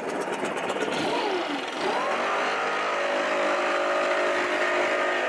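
A blower with a wide black nozzle blasting sawdust off a freshly trimmed plywood layout. Its motor winds up over the first two seconds, then runs at a steady whine.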